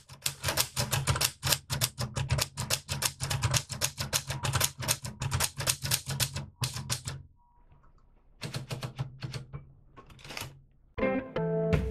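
Tippa portable manual typewriter being typed on: a fast run of key strikes, about five a second, a brief pause, then a shorter run. Guitar music comes in near the end.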